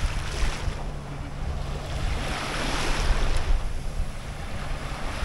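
Wind buffeting the microphone as a low rumble over small waves washing on a sandy shore, the wash swelling about two seconds in.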